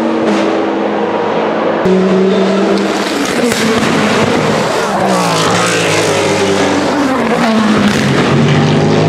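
Gibson GL458 4.5-litre V8 of the Vanwall Vandervell 680 Le Mans Hypercar running at racing speed, with another prototype's engine mixed in. The engine note falls in pitch through the middle and rises again near the end.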